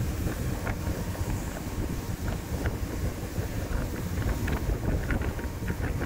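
Speedboat running fast across open sea: a steady low rumble of the engine and the hull on the water, with wind blowing across the microphone.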